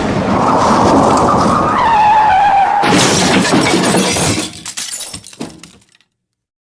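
Car crash sound effect: tyres screeching in a squeal that falls in pitch, then about three seconds in a sudden crash of metal and shattering glass, with debris clattering and tapering off before it ends abruptly.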